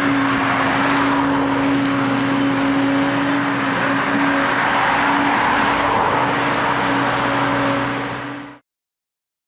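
Diesel engines of a wheeled excavator and a tractor running steadily under load, with a constant drone; the sound fades and cuts off about eight and a half seconds in.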